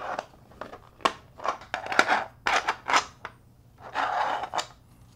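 3D-printed plastic puzzle pieces clicking and scraping against one another and their tray as they are fitted by hand: a few sharp clicks between softer sliding scrapes.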